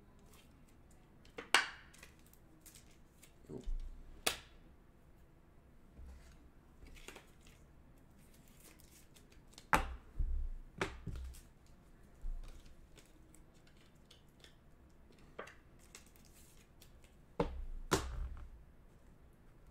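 Trading cards and clear plastic card holders handled on a tabletop: scattered clicks, taps and light knocks, with the loudest about ten seconds in and again near the end.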